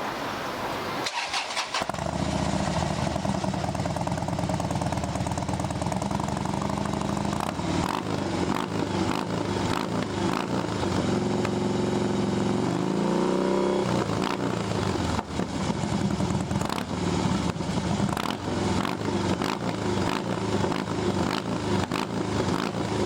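Harley-Davidson Fat Bob V-twin starts about two seconds in and idles through Roncar sport slip-on mufflers with a perforated core, a loud, deep exhaust rumble. Around the middle it is revved once, rising and falling in pitch, then drops back to a pulsing idle.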